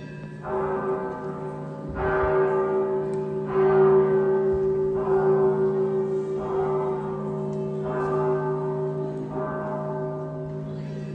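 A church bell tolling, seven strokes about a second and a half apart, each one ringing on into the next.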